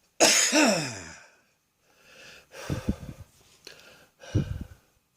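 A person's wheezing breath from a congested chest: one loud exhalation about a fifth of a second in, sliding down in pitch over about a second, then several shorter, quieter raspy breaths.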